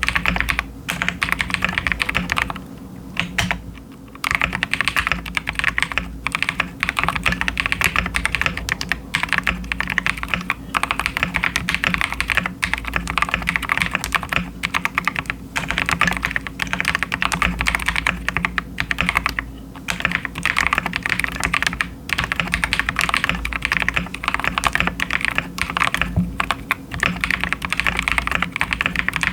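Fast, continuous typing on a KiiBOOM Phantom 81 gasket-mounted mechanical keyboard with a clear acrylic case, stock KiiBOOM Crystal switches and crystal keycaps. There is a brief pause in the keystrokes about three seconds in.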